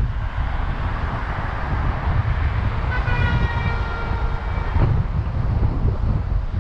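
Wind buffeting the microphone while riding, with a vehicle horn sounding one steady note for about two seconds midway.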